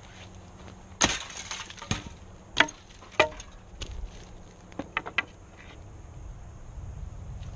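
Wooden boards being handled: a loud clatter about a second in, then several sharp wooden knocks as pieces of wood strike each other and are set down.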